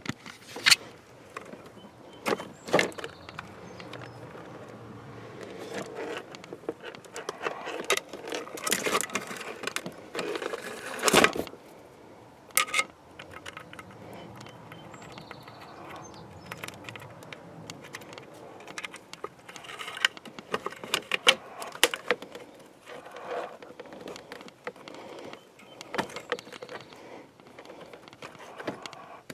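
Irregular clicks, taps and rattles of small metal and plastic parts as the cables are worked onto the spool of a power sliding door's cable-drive unit by hand. One sharp knock about eleven seconds in is the loudest.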